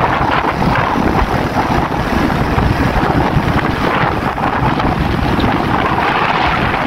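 Wind buffeting the microphone: a loud, uneven rushing noise, heaviest in the low end.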